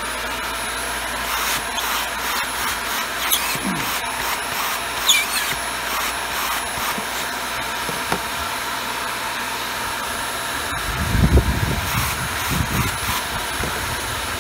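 Hoover WindTunnel Air Pro upright vacuum running, its motor spinning up at the start and then holding a steady high whine, with its clogged HEPA filter removed for a suction test at the hose. About eleven seconds in there is a brief spell of low rumbling.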